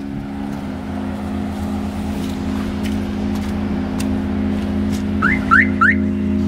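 A steady low drone. About five seconds in come three quick rising chirps, a car alarm being disarmed as the owner reaches the BMW E36.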